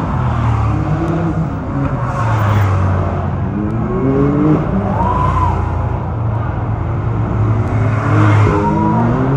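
Engines of off-road side-by-side UTVs running as they drive past at parade pace, with a steady low drone. An engine revs up about four seconds in and another near the end.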